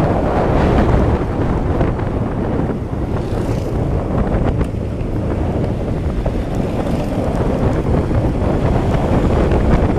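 Wind buffeting the microphone over a continuous low rumble.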